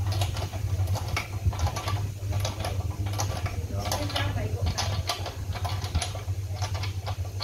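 Irregular clicks and scrapes of hand work on a Stihl 070 chainsaw's engine as it is reassembled, over a steady low hum.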